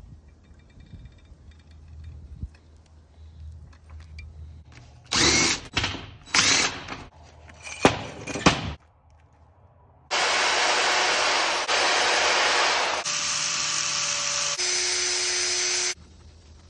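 Short bursts of metal scraping and knocking, then a power tool motor running steadily for about six seconds, its sound shifting twice, while a brass bar is spun and polished with steel wool.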